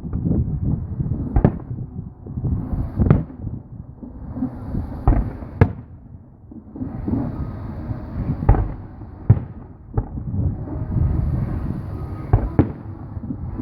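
Aerial fireworks bursting: a run of sharp bangs, about one every second or two, over a steady low rumble.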